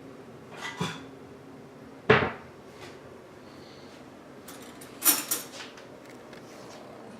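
Household knocks and clatter: a small knock, then a loud sharp knock about two seconds in, and a short burst of bright clattering around five seconds in, like dishes or a drawer being handled.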